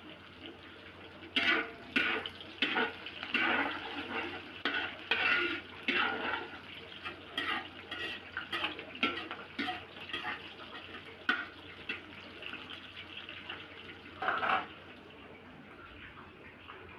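Metal spatula scraping and knocking against a steel wok in a quick, irregular run of strokes, stirring garlic and onion frying in oil, with one last scrape a couple of seconds after the rest.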